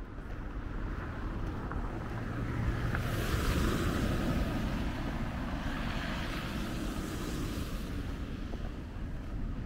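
A car passing close by on a wet, slushy road: the rush of its tyres swells to a peak about three to four seconds in, then slowly fades.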